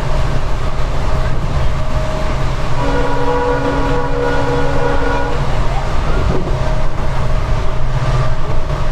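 WDP4B diesel-electric locomotive's 16-cylinder two-stroke EMD 710 engine running with a steady, deep low hum. About three seconds in, a train horn sounds a steady multi-tone chord for about two and a half seconds, then stops.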